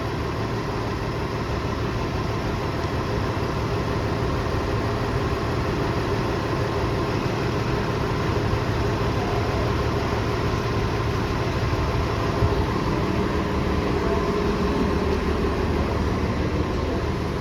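Transit bus engine running in a steady low rumble, idling close by, with street traffic behind it.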